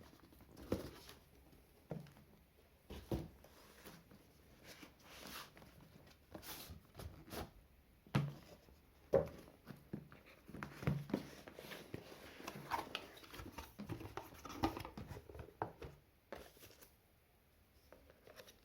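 Cardboard packaging being handled: irregular light knocks, taps and scrapes, with soft rustling between them, as an inner box is opened.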